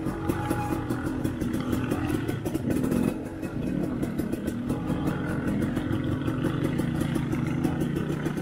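Dirt bike engine running on the throttle, its note rising and falling as it rides over rough ground, easing off briefly about three seconds in.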